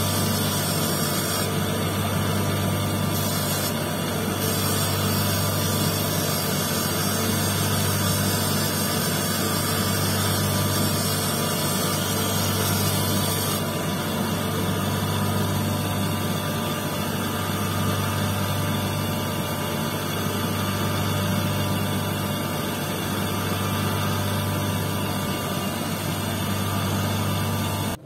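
Electric motor spinning a lapidary lap disc with a steady hum, and a constant hiss from a quartz stone on a dop stick pressed against the disc as it is cut and shaped.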